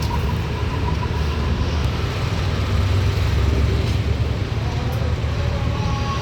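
A large vehicle's engine running steadily with a low rumble.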